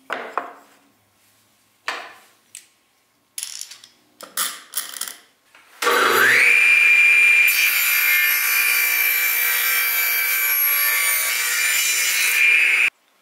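Clamps and wood knocked about on a table saw. About six seconds in, the table saw starts up, its whine rising quickly to a steady pitch, and cuts a tenon's cheek with the piece clamped upright against a tall fence. The sound cuts off suddenly near the end.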